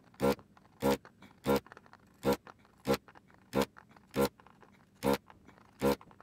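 Vacuum pump of a ZD985 desoldering station buzzing in short bursts, nine in about six seconds, each one sucking the molten solder out of one through-hole pin of a DIP chip in turn.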